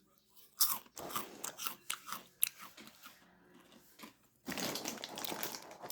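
A person biting into and chewing a crisp Cheez-It cheese cracker close to the microphone. There is a sharp crunch about half a second in, then crackly chewing that eases off midway and picks up again near the end.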